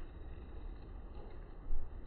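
Steady low rumbling background noise with no bird calls, and one short dull bump near the end.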